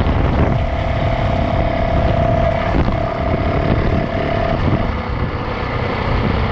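Four-stroke 450cc dirt bike engine running steadily under way, with wind rushing over the microphone. A steady whine sits above the engine and cuts out briefly a couple of times.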